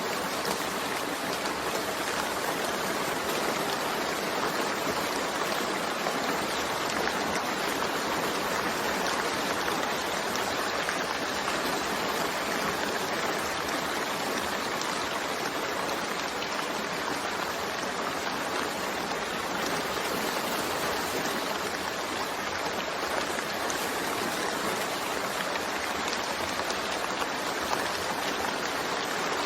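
Steady rain falling: an even hiss with a fine patter of drops, without change or thunder.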